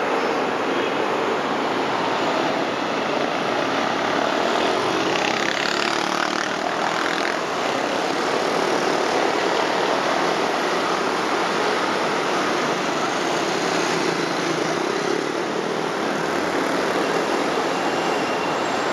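Dense city street traffic dominated by many motor scooters, a steady drone of small engines and tyres with taxis and cars mixed in. One vehicle passes louder about six seconds in.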